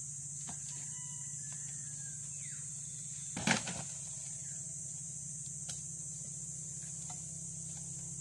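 A single sharp knock from a metal hand tool striking, about halfway through, with a short ring after it, over a steady high insect drone; a couple of faint ticks elsewhere.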